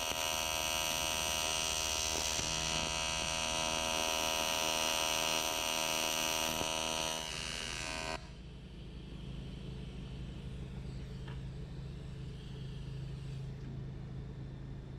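AC TIG welding arc on an aluminum transmission case, buzzing steadily. It drops a little in level shortly before it cuts off suddenly about eight seconds in, when the arc is shut off. A quieter low hum carries on after it.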